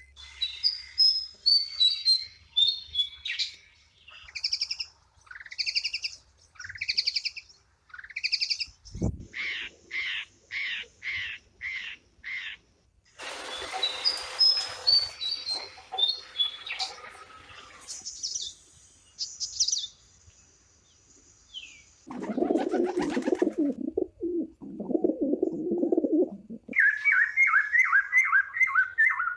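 A series of different bird calls: repeated chirps and high whistled notes, a fast run of sharp notes, and near the end a rapid, high chirping series. About three-quarters of the way through there is a stretch of lower, rougher calls.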